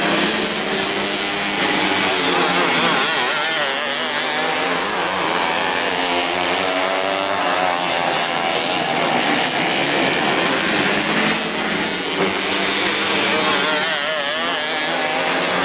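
Several 250cc winged micro sprint cars racing on a dirt oval, their engines revving up and down in wavering pitch as they lap. One car passes close by near the end.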